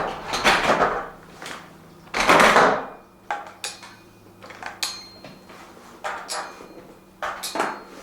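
Metal dumbbells being handled and set down: a string of short clanks and knocks, some leaving a faint metallic ring, with a longer rattling clatter about two seconds in.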